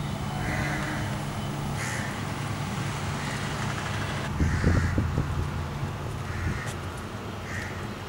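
Crows cawing, short calls repeated about once a second, over a steady low rumble; a louder low rumble swells briefly about halfway through.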